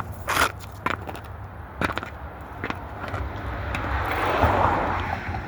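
Muddy football cleats stepping: a few sharp clacks and crunches about once a second. Then a longer rush of noise builds and fades over the last couple of seconds.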